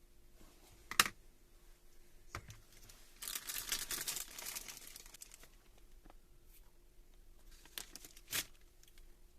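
Handling noises: a few sharp clicks and knocks, and about two seconds of rustling and crinkling near the middle.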